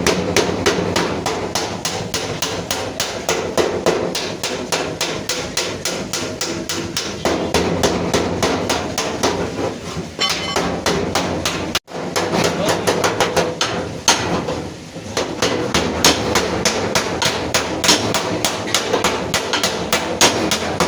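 Hammer beating out dented sheet metal on the crash-damaged front of a Suzuki Ravi pickup: fast, steady blows, about four to five a second, with a brief break about twelve seconds in.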